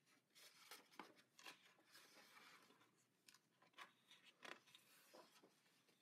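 Faint rustling and soft clicks of paper pages being turned and smoothed flat by hand in a thick illustration book: a handful of short crisp rustles with a longer one near the middle.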